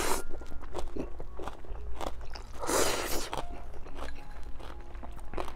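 Ramen noodles in crab stew broth being slurped and chewed. There is a loud slurp at the start and another, longer one about three seconds in, with wet chewing clicks between.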